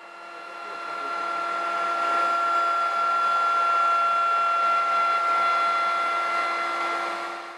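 Electric plunge router running at speed, its 45-degree chamfer bit cutting the bevel (luzga) between the recess and the raised border of a wooden icon board: a steady high whine over the hiss of cutting wood. It swells over the first couple of seconds and cuts off at the very end.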